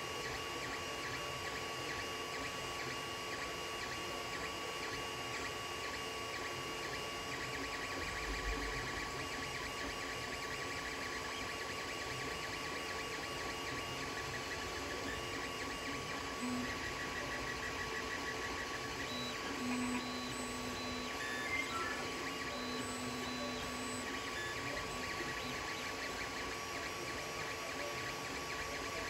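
Creality Ender 3 3D printer running a print: its stepper motors whine in short, shifting tones as the print head moves, over a steady hum from the hotend cooling fans.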